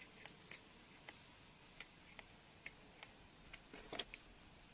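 Faint, irregular small clicks and ticks of stones being handled, with a slightly louder cluster about four seconds in.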